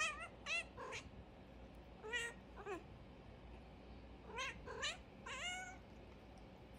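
Domestic cat meowing at its owner in a talkative run of about eight short meows, some bending up and down in pitch. The meows come in groups of two or three with short pauses between.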